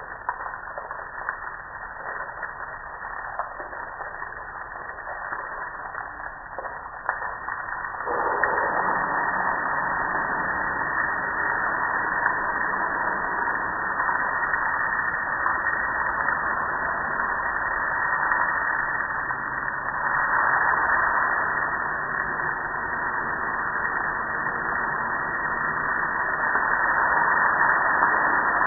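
A jet of water spraying onto a gas grill's metal lid and body, a steady hiss that gets louder about eight seconds in.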